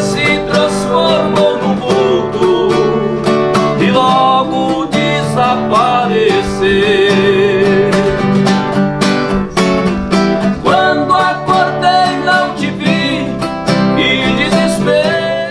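Instrumental music led by acoustic guitar, with a quick run of plucked notes over sustained chords.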